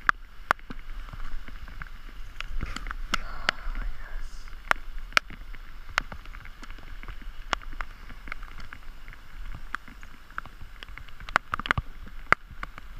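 Steady hiss of rain on a pond, with irregular sharp ticks throughout from raindrops striking the camera.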